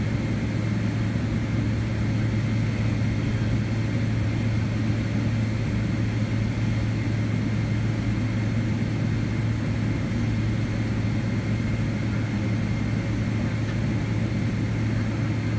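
Steady cabin noise inside a taxiing Boeing 777-200LR, its General Electric GE90 engines at idle: a constant low hum with a faint high whine.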